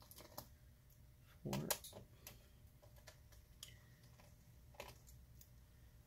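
Faint scattered clicks and ticks of a small screwdriver undoing the screws that hold a laptop battery, with one louder handling knock about one and a half seconds in.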